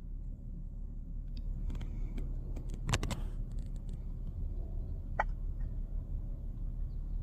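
Baby hiccuping once, a short sharp catch of breath about five seconds in, over a steady low hum. About three seconds in, a louder cluster of clicks and knocks.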